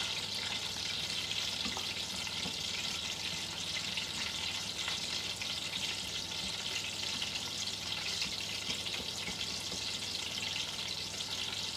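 Aubergine slices shallow-frying in hot oil in a stainless steel pan: a steady sizzle with small scattered crackles, along with a spatula stirring through a mixture in a second pan.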